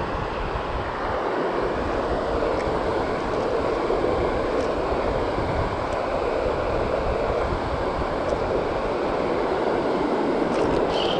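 Steady rush of river water flowing over a shallow riffle.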